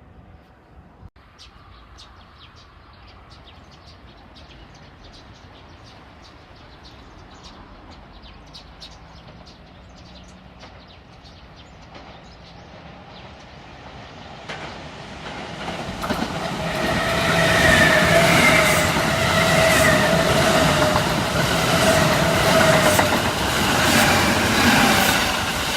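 Kintetsu electric train approaching and then passing close: faint regular clicking at first, growing loud about 15 seconds in, with wheel-on-rail noise and steady high whining tones as the cars go by.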